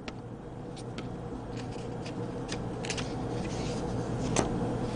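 Sheets of paper being handled and slid across a desk, with scattered light crinkles and clicks over a faint steady hum.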